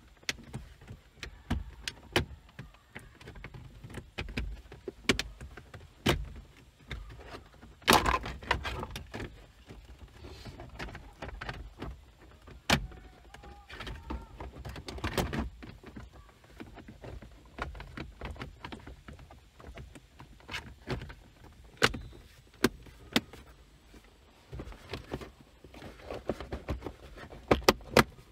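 Hands working the plastic interior trim and cable of a Toyota Corolla's lower dashboard and console: irregular clicks, taps and rustling, with louder scraping spells about eight seconds in and again around fifteen seconds.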